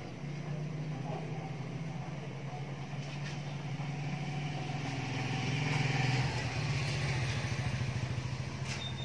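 A motor vehicle engine running, with a steady low hum that grows louder to about six seconds in and then eases off.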